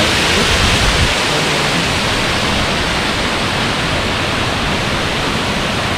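Ravana Falls waterfall: a loud, steady rush of falling water.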